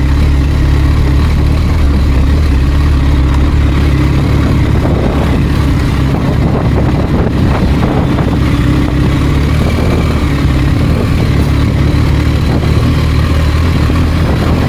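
BMW R1250GS boxer-twin motorcycle engine running steadily under way, with road and wind noise and a few knocks around the middle.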